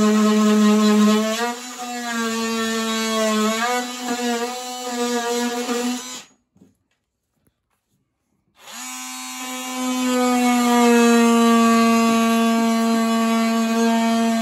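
Cordless DeWalt oscillating multi-tool buzzing as it trims the end of a wooden slat, its pitch dipping and wavering under load. It stops about six seconds in and starts again a couple of seconds later, then runs steadily.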